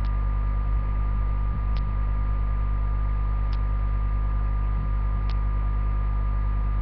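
Steady electrical hum with several held tones, broken by a light tick about every second and three-quarters.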